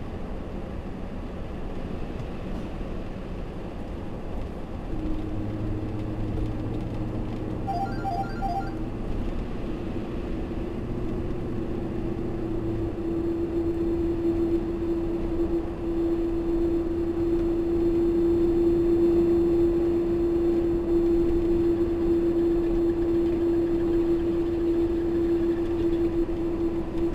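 Cab noise of a vehicle driving on a wet road: steady tyre and engine noise. A steady droning tone comes in about five seconds in and grows louder, and a short run of beeps sounds about eight seconds in.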